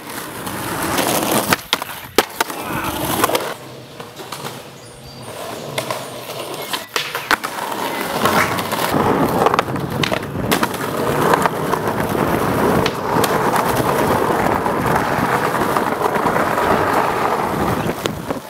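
Skateboard wheels rolling on concrete, with several sharp clacks of the board popping and landing. The rolling grows louder and steadier from about halfway through.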